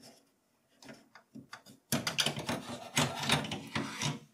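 A Seagate 3.5-inch hard disk's metal case scraping and knocking as it is slid out of the PC's steel drive cage, after a few light clicks of cable connectors being worked loose.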